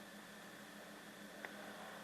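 Faint steady hiss with a low hum underneath, and a single short click about one and a half seconds in.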